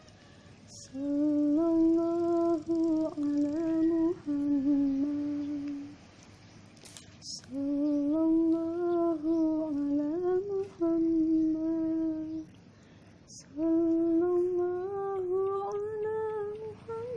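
A woman humming a slow, wordless melody in three long phrases with short pauses between them.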